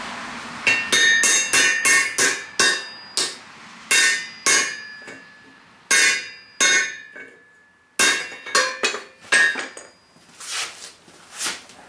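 Forging hammer striking hot steel over a swage block on the anvil, shaping a radius into a ball-peen hammer head. The blows ring sharply and come fast, about ten in the first three seconds, then spaced out. After a pause there is another quick run of blows, and softer, duller hits near the end.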